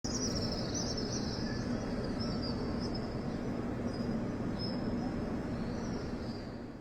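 Outdoor background ambience: a steady rushing noise with thin high chirps over it, fading out near the end.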